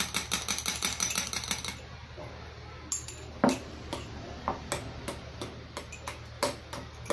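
A utensil clicking against a bowl in quick, even strokes while stirring slime, stopping about two seconds in, then a few scattered single clicks.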